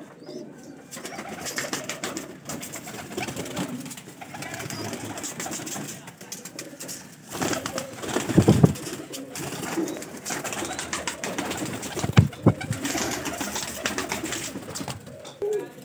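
Domestic pigeons cooing in a loft. There is a louder flurry of flapping and handling about halfway through, and a sharp thump a few seconds later.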